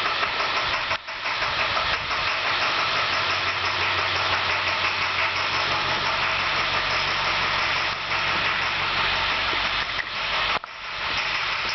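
International school bus diesel engine idling steadily with a knock from a broken injector tip.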